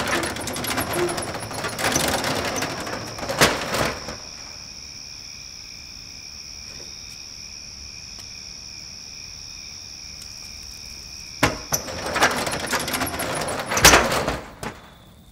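Crickets trilling steadily at night, broken at the start and again near the end by loud rattling of a corrugated metal roller door, with a sharp bang in each stretch.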